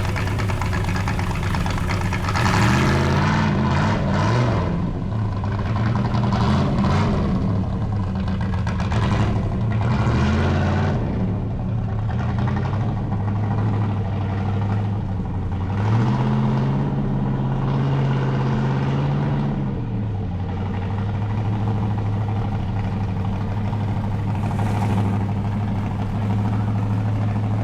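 Motor vehicle engine idling, its note rising and falling several times under light revs. The longest rise comes about 16 seconds in and holds for a few seconds before dropping back to a steady idle.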